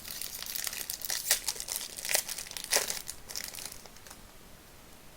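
Plastic trading-card pack wrapper being torn open and crinkled by hand in sharp crackly bursts, dying down about four seconds in.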